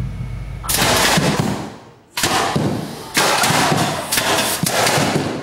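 Small toy cannons firing at targets: three sudden loud blasts, each trailing off over about a second.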